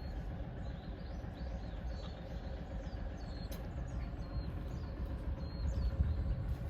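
Outdoor background: a steady low rumble with small birds chirping high and brief, over and over.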